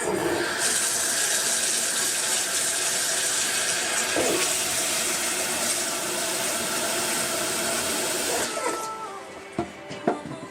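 Water running steadily from a tap for about eight and a half seconds, then shut off, followed by a few light knocks.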